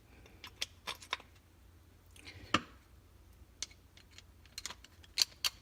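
Scattered light clicks and taps of a flathead screwdriver and small metal parts being worked, as the screw holding a brace adapter onto a shotgun's rear end is driven in. One sharper click comes about two and a half seconds in and a quick cluster near the end.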